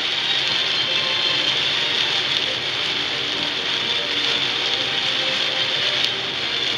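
Heavy rain beating on a moving car's windshield and roof, a steady hiss mixed with the tyres on the wet road.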